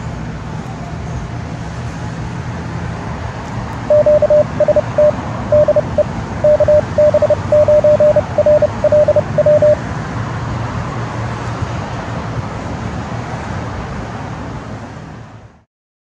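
Morse code: a single tone near 600 Hz keyed on and off in dots and dashes over loud shortwave radio static, starting about four seconds in and stopping near ten seconds. The static fades out near the end.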